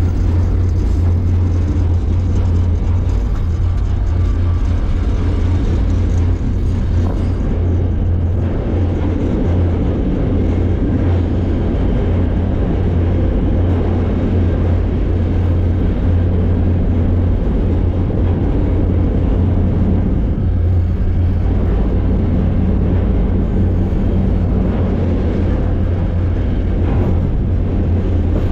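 Steady, heavy low rumble of a freight car rolling over the rails at speed, heard from on board the car.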